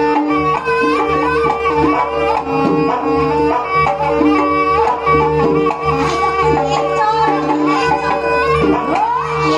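Live Javanese jaranan accompaniment: a reedy slompret (shawm) plays a winding melody over steady kendang drumming and a held drone note.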